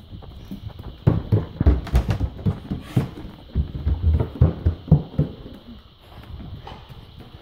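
Fast, heavy footsteps of a person running across a tiled floor and up wooden stairs, an uneven string of thumps and knocks, quieter near the end.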